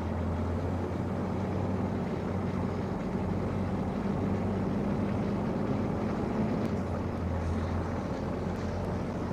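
Scania G460 truck's 13-litre six-cylinder diesel engine running at low speed with a steady low hum as the truck drives slowly away and turns.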